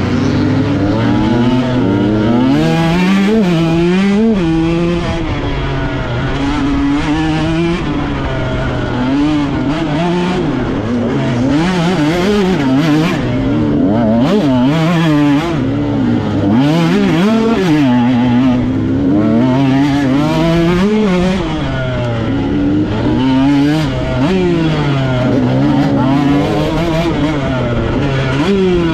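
Off-road dirt bike engine ridden hard, heard from the rider's chest: the engine pitch rises and falls every second or two as the throttle is worked on and off over rough ground.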